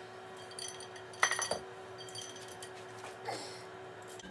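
Steel chain links clinking and rattling as the chain is handled and hooked up. It comes in a few separate rattles, the loudest about a second in, each with a short metallic ring.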